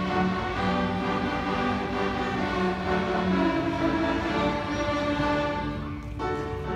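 A large student string orchestra of violins and cellos playing held, sustained notes together. About six seconds in the sound dips briefly, and a new phrase of shorter notes begins.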